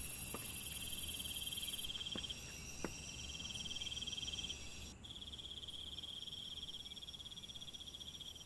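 Crickets and other night insects chirring: a steady, finely pulsing trill, with a second, much higher shrill insect sound that cuts off about two seconds in.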